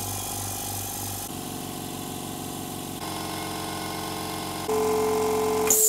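Swan DRS-210-30 30-litre air compressor running steadily as it fills its tank from empty, its hum shifting abruptly in pitch and loudness a few times. Right at the end a hiss of air starts as it reaches full pressure and cuts out.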